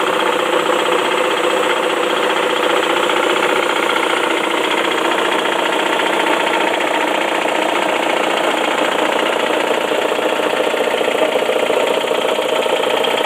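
2004 Saab 9-5 engine idling with a steady, fast, even knock from the engine compartment. The owner suspects a loose connecting rod or bearing near the oil pan.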